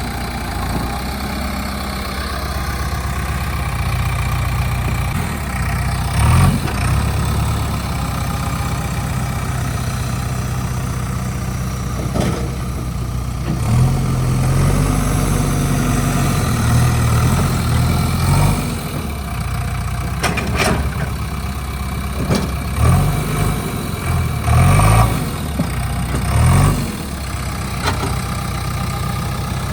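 JCB 3DX backhoe loader's diesel engine running at idle, with several short rises in revs, one about six seconds in and a cluster in the second half. A few sharp knocks are heard near the middle.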